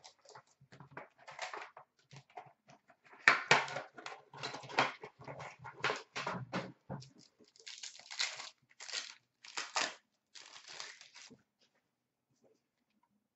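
Clear plastic wrapping from a trading-card box being torn off and crumpled by hand: irregular crackling, loudest about three to five seconds in, stopping about eleven seconds in.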